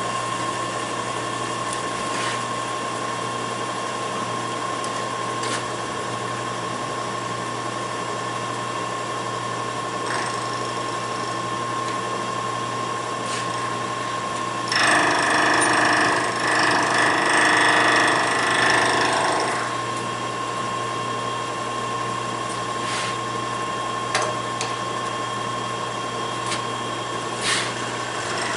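Milling machine face-milling a metal block: the spindle runs with a steady whine and the cutter's cutting noise, with scattered ticks. A louder, harsher stretch of cutting lasts about five seconds midway through.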